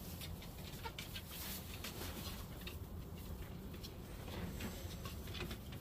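Faint rustling and scattered small clicks from a hand handling a wooden nest-box board and the straw around it, over a low steady rumble.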